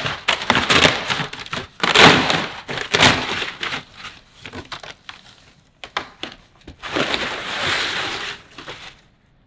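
Brown kraft packing paper crumpling and cardboard flaps scraping as hands dig through a shipping box, in loud crackly bursts for the first three seconds. Quieter scattered crackles follow, then a long rustle near the end as a part in a plastic sleeve is pulled out of the box.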